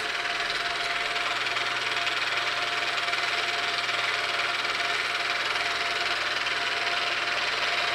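Milling machine running steadily at a raised spindle speed, a small end mill spinning while the stepper-motor-driven rotary table turns. It is an even mechanical hum with a held mid-pitched whine, and it comes up suddenly at the start.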